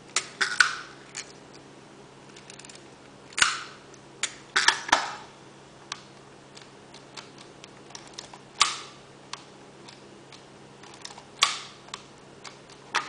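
Canon Canonet QL17 G-III rangefinder camera being worked by hand without film: a series of sharp mechanical clicks and short ratchety snaps from its shutter, film advance lever and back door, in clusters about a second in, around three to five seconds in, and near nine and eleven and a half seconds. The mechanism sounds as it should, and the owner takes the camera to be working.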